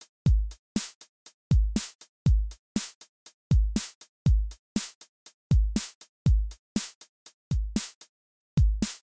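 Background music: an electronic drum-machine beat of deep, falling kick drums and sharp snare-like hits, with no melody to be heard; the beat drops out briefly near the end.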